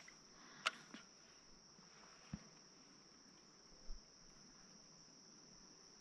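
Near silence with a faint, steady high-pitched insect chorus. A few faint clicks, the first about half a second in, and a soft low bump near four seconds.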